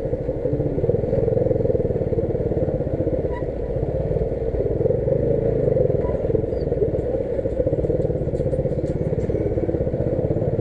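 Dafra Apache RTR 150's single-cylinder engine running steadily under way, heard from on the bike.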